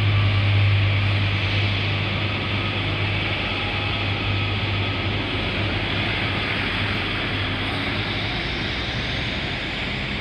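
Northern diesel multiple unit pulling away from the platform: a steady low engine hum with a rushing noise over it, both slowly fading as the train draws off, the hum dropping away about two thirds of the way through.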